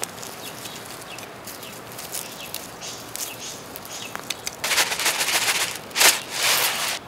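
Hand trowel scraping and digging in bark mulch and soil with scattered small clicks, then, from about halfway in, a louder rattling rush as pest-control treatment is shaken out of a plastic jug onto the soil, loudest near the end.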